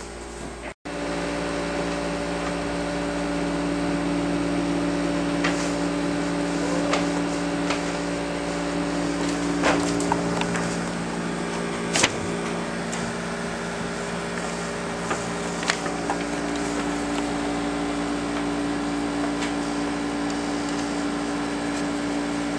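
A steady electrical or mechanical hum, like a household appliance or fan running, with a few sharp clicks and taps scattered through it. The sound drops out briefly about a second in.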